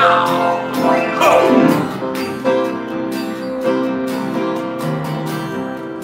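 Acoustic guitar strumming and upright piano playing an instrumental break in a song, with a voice sliding downward in the first two seconds.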